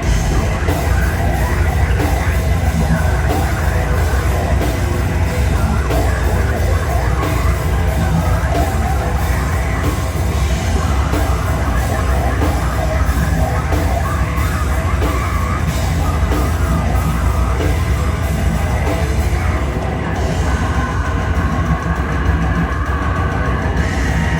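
Metallic hardcore band playing live at full volume: heavy distorted guitars, bass and drums with yelled vocals.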